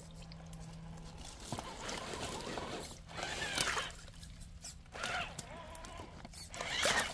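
Hobbywing 1800 SE electric motor and drivetrain of an RC rock crawler whining in short throttle bursts that rise and fall in pitch, with water splashing around the tyres as it climbs through a shallow creek.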